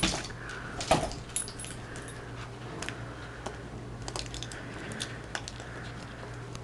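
Scattered light clicks and jingling as a dog moves about and mouths a plush toy, with a sharper knock about a second in.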